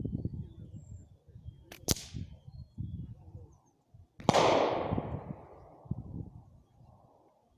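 Suppressed Hammerli Tac R1 .22LR rifle firing: a sharp crack about two seconds in, just after a faint click, then a louder shot about four seconds in that rings out and fades over a couple of seconds. Low rumbling noise runs underneath.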